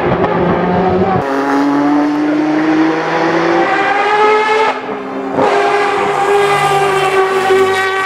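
Mazda four-rotor rotary engine in a Group C race car at full throttle: a loud, high-pitched wail climbing steadily in pitch. About five seconds in it briefly dips and breaks off, then climbs again.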